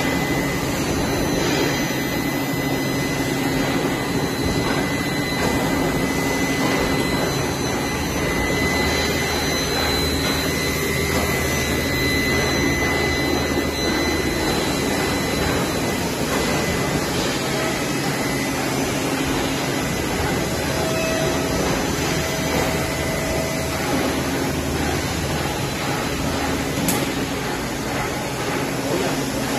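Automatic stainless steel sink welding machine running: a steady mechanical hiss with a thin high whine and a low hum.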